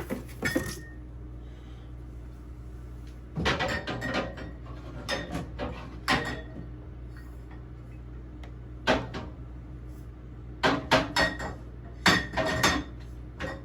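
Glass kombucha bottles clinking and knocking against each other and the refrigerator shelves as they are set in, in several short bursts of clinks with pauses between.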